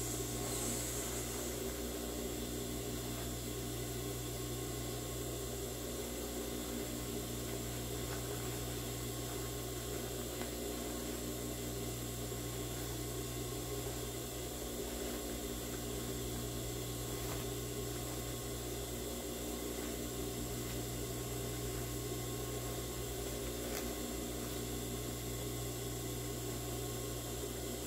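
Steady low mechanical hum, with faint rustling of cotton fabric as a sewn placemat is turned right side out by hand.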